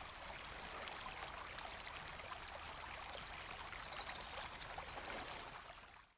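Shallow stream running and babbling over rocks, fading out near the end.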